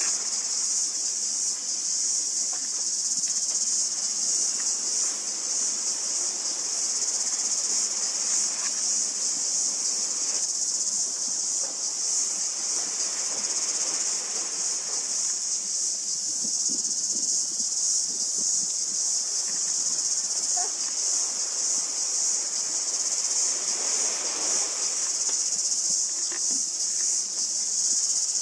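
A steady, high-pitched chorus of insects chirring without pause, with a fainter wash of waves swelling and fading beneath it a few times.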